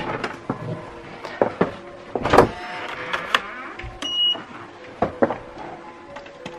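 A hotel room door with an electronic keycard lock being opened and walked through: a sharp latch click, then several knocks and clatters from the door and handle, with a short electronic beep about four seconds in.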